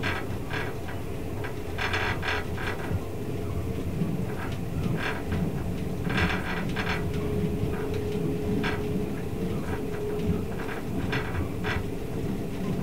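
Twilight Express passenger coach running on the rails, heard from inside the car: a steady low rumble of wheels on track with irregular sharp clacks, and a faint steady hum for a few seconds in the middle.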